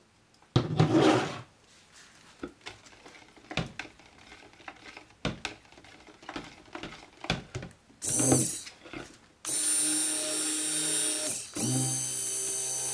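Stick blender in a plastic bucket of cold-process soap batter, blending in the fragrance oil: knocks and stirring noises with the motor off, a short burst of the motor about 8 s in, then the motor running steadily with a whine from about 9.5 s, stopping briefly and starting again a couple of seconds later.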